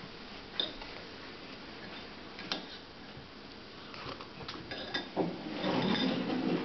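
Metal spoon clinking against a ceramic cereal bowl, a few separate clicks, then quicker clinks about four seconds in. Near the end comes a louder stretch of scraping and rustling.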